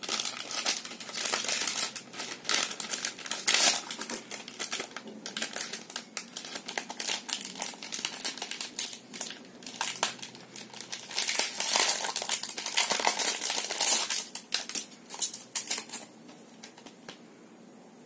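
Thin plastic packaging bags crinkling and crackling in irregular bursts as they are handled and opened and a phone case is slid out. The crackling stops near the end.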